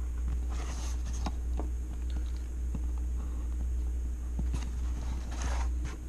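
Pencil and clear plastic ruler on tracing paper: two short scratchy strokes, about half a second in and again just after five seconds, with scattered light clicks and taps as the ruler and paper are handled, over a steady low hum.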